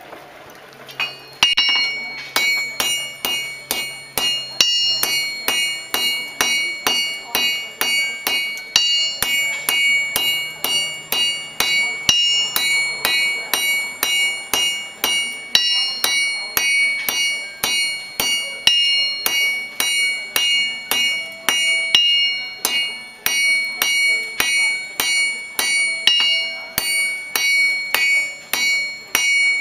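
Blacksmith's forged-steel hand hammer striking a red-hot steel rod on an anvil: a steady run of blows, about two to three a second, each ringing out high and metallic. The hammering starts about a second and a half in.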